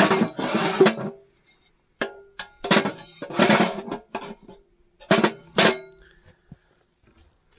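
Music: strummed guitar with drum hits, coming in short loud bursts that stop about six seconds in.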